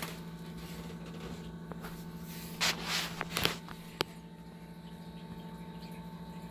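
Brief rustling and scraping of handling noise around the middle, and a single sharp click about four seconds in, over a steady low electrical hum.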